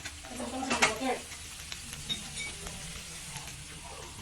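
Food sizzling in a frying pan as it is stirred.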